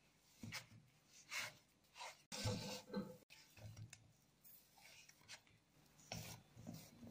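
Hands kneading a crumbly cocoa dough in a stainless steel bowl: faint, irregular squishing and rubbing as the dough is pressed and gathered into a ball.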